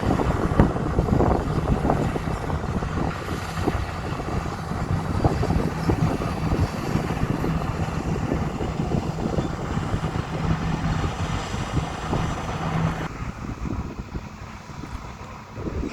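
Diesel engine of heavy earthmoving equipment running under work, a dense rumble with crackling clatter. A steady low hum in it stops about 13 seconds in, and the sound turns duller and a little quieter.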